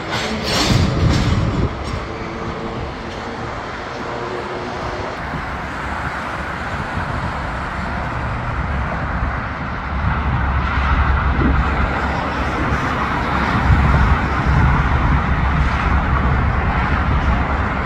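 Freight train of double-stack container cars rolling past, with steady steel-wheel-on-rail noise. A low diesel rumble grows louder from about halfway through as a trailing Union Pacific diesel locomotive comes nearer.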